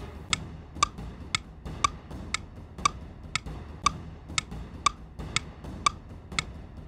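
Clock ticking sound effect for a countdown timer: a steady tick, about two a second.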